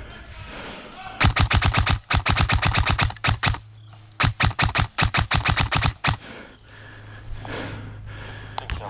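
Airsoft rifle firing on full auto: two bursts of rapid, evenly spaced shots, about a dozen a second, the first starting about a second in and lasting two seconds, the second following after a short pause.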